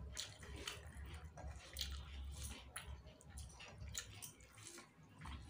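Faint, soft squishing and small scattered clicks of fingers mixing cooked rice on a plate.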